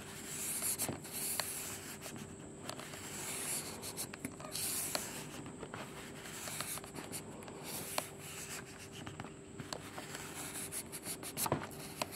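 A folded strip of paper rubbed up and down between a laser toner cartridge's developer roller and its doctor blade, a dry scraping in repeated strokes with small clicks. This is done to clear the uneven, moisture-affected toner layer on the roller.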